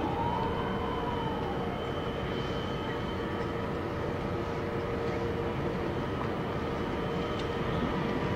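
Harbour crane machinery running steadily as it lowers a container onto a stack, a low drone with a steady whine of several tones over it. About a second in, a faint tone rises and falls once.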